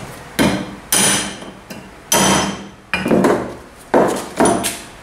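Hammer blows on a steel drift, knocking an old wheel bearing out of a moped's rear sprocket carrier: about seven sharp metallic strikes, unevenly spaced, each ringing briefly.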